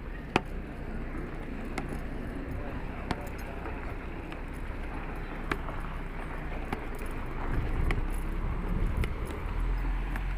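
Construction site ambience: a steady background noise with a low hum, a few sharp metallic clinks scattered through it, and a low rumble that grows louder over the last few seconds.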